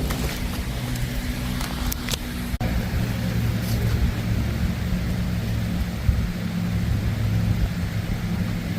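An engine running steadily with a low hum. Its pitch shifts at an abrupt break about two and a half seconds in.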